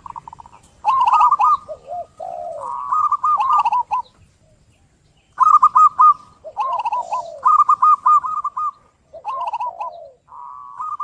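Zebra dove (perkutut) cooing: short phrases of quick, bouncing staccato notes, one after another with brief pauses and a longer gap a little before halfway.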